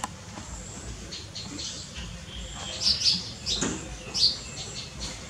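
Small birds chirping: a run of short, high chirps, loudest around three seconds in and again near four seconds.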